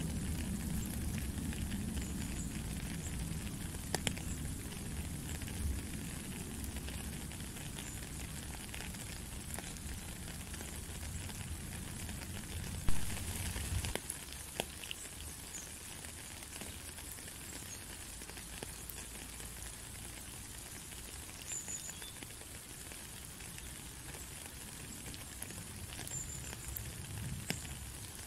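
Steady rain, a dense crackling patter of drops on water and wet ground. A low rumble underneath drops away about halfway through, just after a single sharp knock.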